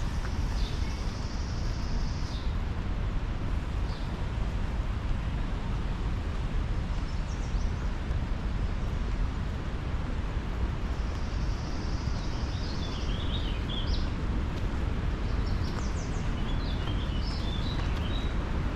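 Birds singing over a steady low rumble: a high, buzzy trill that comes twice, near the start and again about halfway through, then a few short chirping phrases toward the end.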